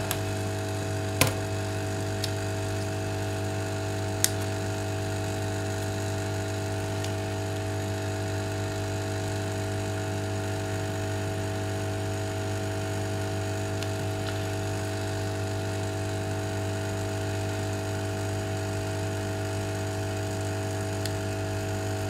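Steady electrical mains hum, with a couple of light clicks about a second and about four seconds in as a plastic pry pick works under the glued screen of an iPod nano.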